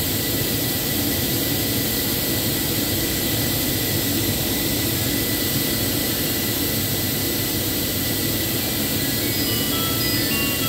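Steady machinery drone with a constant thin high whine over it. A few faint short high tones sound near the end.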